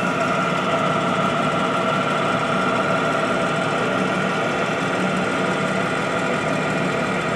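American Pacemaker engine lathe running under power, its geared headstock giving a steady mechanical hum with several constant tones.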